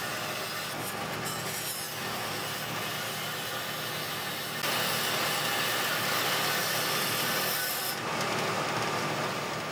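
Bandsaw running with its blade cutting through the Garolite LE fiberboard layer bonded under a milling vise base as the vise is pushed through. The cutting gets louder about halfway in and eases near the end.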